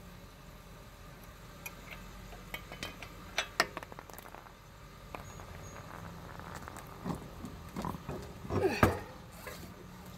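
Scattered metallic clinks and knocks as the lug nuts are worked off a car's flat wheel, busiest near the end.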